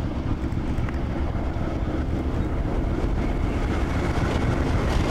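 Diesel locomotive running as it ploughs through deep snow: a steady engine drone mixed with the rushing noise of snow being thrown aside. It grows slightly louder as the locomotive comes closer.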